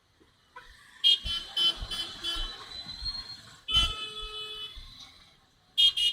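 Vehicle horns honking in traffic: a quick run of short beeps, a longer single honk about halfway through, then another burst of rapid beeps near the end.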